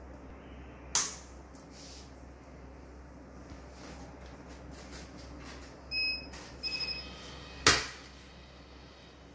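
Fujikura 88S fusion splicer being loaded and operated: a sharp click about a second in, a beep about six seconds in followed by a quick run of short beeps from the machine, then a loud click as its lid snaps shut.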